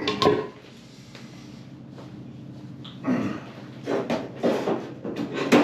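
Knocks and scrapes of hard objects being handled, most likely the rusted RD400 exhaust pipe and its freshly extracted baffle being moved and set down, with a cluster of knocks in the second half and the loudest knock at the end.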